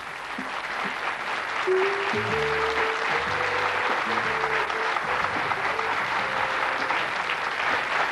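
Studio audience applauding, the clapping building up over the first two seconds, over a TV show theme tune with a held melody and bass notes.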